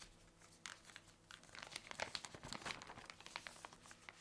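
Faint crinkling and rustling of a clear plastic kit bag and paper sheets as folded cross-stitch fabric and its printed chart are slid back into the bag, in a run of irregular small crackles.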